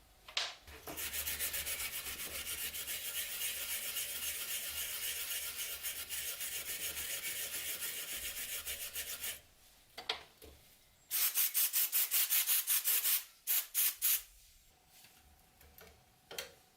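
Abrasive scrubbing of rust off the metal of an old rusty padlock. A long continuous stretch of fast, even scrubbing stops about nine seconds in. After a short pause come a run of quick back-and-forth strokes, then three more.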